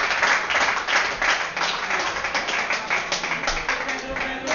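Clapping and applause from a small audience, with voices talking under it, the clapping thinning out near the end.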